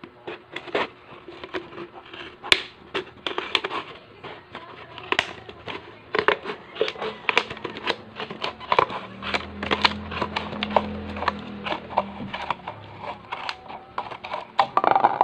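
Scissors snipping through the thin plastic of a soda bottle, with the plastic crackling and crinkling as it is held and turned; sharp irregular clicks, several a second. A faint low hum joins in for a few seconds in the middle.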